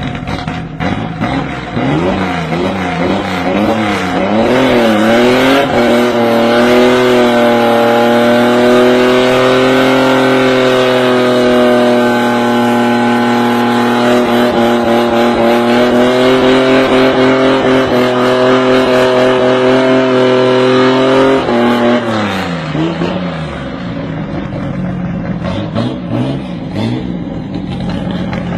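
Chevrolet Opala engine running loud. It is blipped a few times, then held at high revs for about fifteen seconds, then drops back to idle, with a couple of short blips near the end.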